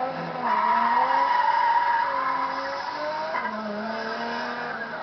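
Race car engine running with its tyres squealing: a loud high squeal starts about half a second in and eases off about three seconds in, with the engine note underneath slowly shifting in pitch.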